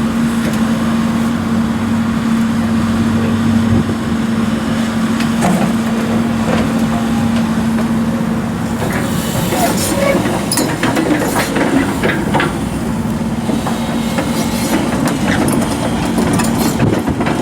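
Sany SY135C excavator's diesel engine running at a steady speed. About halfway through, irregular metallic clanking and knocking start over the engine note.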